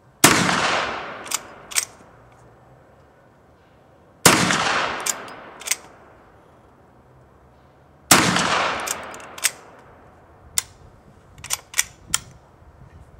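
Three shots from a replica 1860 Henry lever-action rifle in .44-40 loaded with black powder, about four seconds apart, each ringing out for a second or so. Sharp metallic clicks of the lever being worked follow each shot, with a quick run of several clicks near the end.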